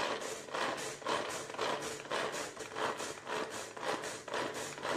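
Hand-worked plastic vegetable chopper chopping onion, tomato and green chilli, its blades spun in quick repeated strokes, about two or three a second, each a short whirring rasp.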